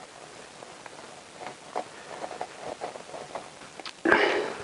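Light scattered clicks and taps of bolts and a hand tool against a motorcycle engine side cover as the bolts are lined up and started, then a louder, rougher noise of about half a second near the end.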